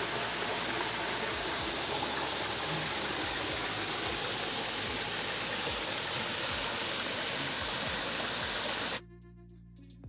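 Water rushing over the lip of a waterfall, a steady hiss that cuts off suddenly about nine seconds in. Faint background music follows.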